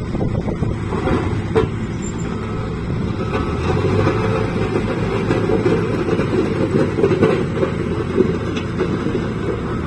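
Steady diesel running of road-paving machinery, chiefly a HAMM tandem asphalt roller driving slowly over fresh asphalt, with an asphalt paver's engine alongside. The running grows a little louder partway through as the roller comes closer.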